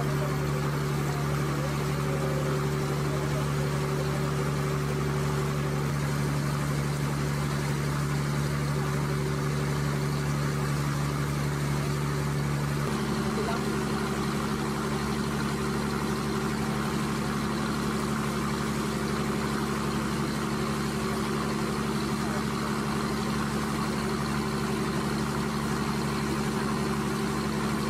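Boat's engine running steadily under way, heard from on board, with water rushing past the hull. About halfway through, the engine note shifts higher.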